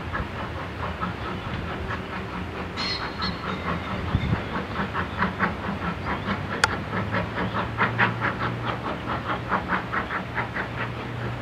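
Steam train hauling a rake of coaches away, making a steady, rapid rhythmic beat over a low rumble.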